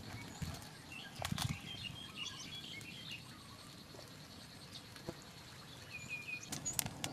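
Birds chirping over a steady high-pitched whine, with a few sharp clicks and knocks about a second in and again near the end.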